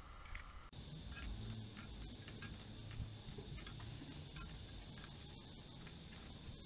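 Metal skimming spoon and rod clinking and scraping against a stainless steel pot of molten battery lead as the dross is skimmed off: irregular light clicks and scrapes.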